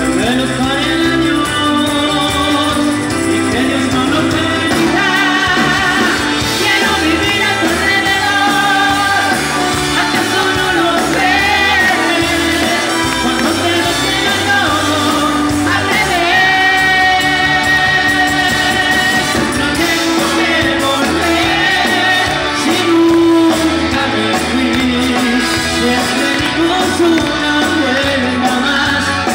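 Spanish-language Latin dance song: a lead singer's voice over a band with a steady, repeating bass beat.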